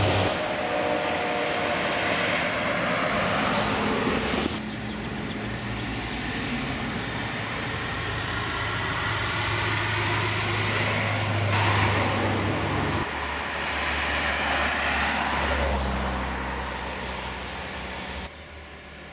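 Classic cars driving past one after another, engines running over tyre and road noise. The sound changes abruptly twice where the footage cuts from one car to the next, and drops in level near the end.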